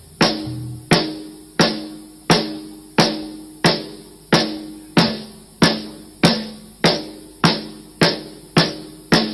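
Snare drum of a rock drum kit, played alone at a steady beat, about three ringing hits every two seconds, with a bass drum kick about half a second in.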